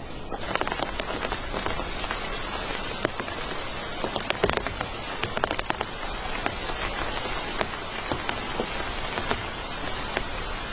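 Steady rain falling, with many individual drops ticking sharply on a surface; it comes in about half a second in.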